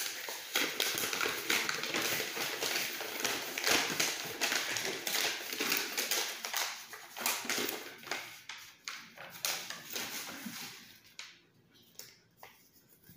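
A folded paper instruction leaflet being unfolded and handled: a rustling, crackling run of paper noise that dies down about eleven seconds in to a few faint rustles and clicks.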